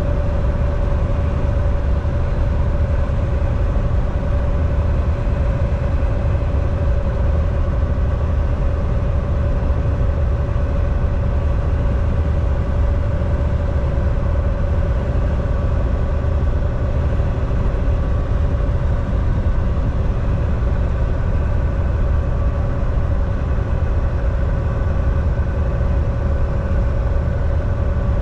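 Volvo semi-truck on the road: a steady, unbroken drone of engine and tyre noise, heavy in the low end, with a constant mid-pitched whine over it.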